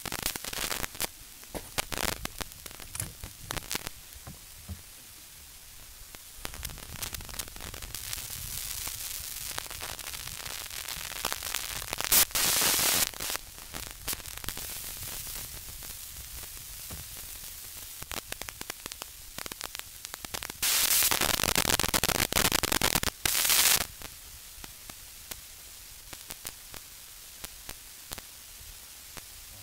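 Wind buffeting and crackling on the microphone in loud gusts, about a third of the way in and again past two-thirds, over the low running of a Yamaha 60 hp outboard motor during idle and throttle adjustment.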